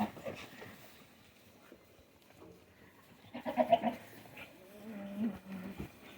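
Goats bleating: one loud bleat a bit over three seconds in, then a lower, longer, wavering call near the end.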